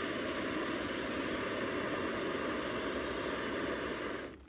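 Gas canister backpacking stove (MSR PocketRocket) burning steadily under a stainless pot of water at a rolling boil. The flame's roar stops abruptly near the end.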